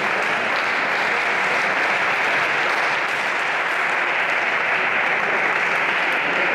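Spectators applauding steadily.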